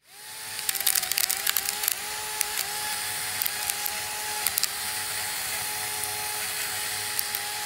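Small electric motor of a homemade miniature lawn mower running with a steady high whine, with many sharp ticks as its spinning blade hits grass clippings, most in the first couple of seconds. The whine sags briefly in pitch a few times as the blade takes load.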